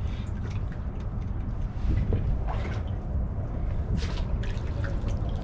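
Water splashing and dripping as a hooked fish is brought up to the surface beside a kayak, with a few short sharp splashes over a steady low rumble.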